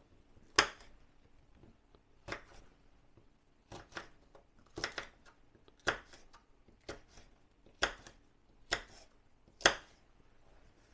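Kitchen knife roughly chopping red chillies on a wooden chopping board: about ten sharp knocks of the blade on the board, roughly one a second.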